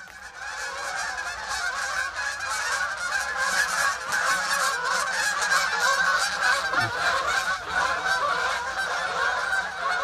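A large flock of geese flying overhead in a long skein, many birds honking at once in a dense, continuous chorus that swells over the first second.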